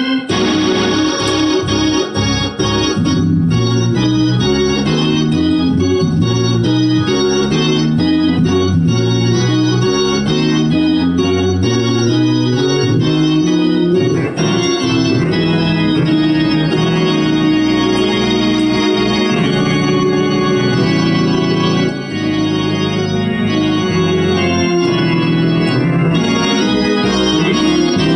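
Hammond-style two-manual console organ played with both hands in gospel style: full sustained chords over a moving bass line, with one short break in the sound about 22 seconds in.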